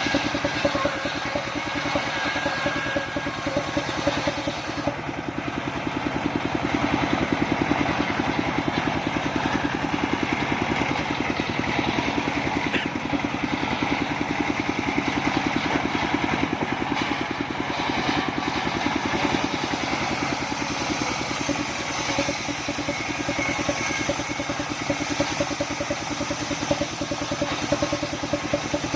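Engine of a circular sawmill running steadily, with a fast, even beat of firing pulses.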